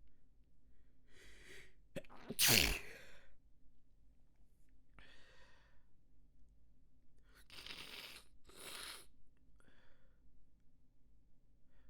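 A person sneezes once, loudly, about two seconds in, after a quick breath in. The voiced part of the sneeze falls in pitch, and it is one sneeze in a snotty sneeze fit. A few quieter, breathy sounds follow over the next several seconds.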